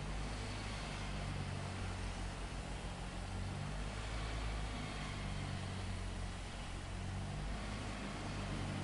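Steady low engine drone, like heavy machinery running, with no sudden events.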